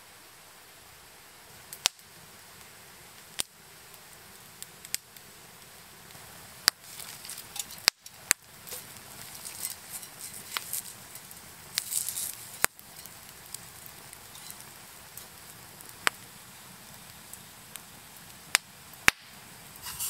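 Wood campfire crackling, with sharp pops every second or two over a steady low hiss.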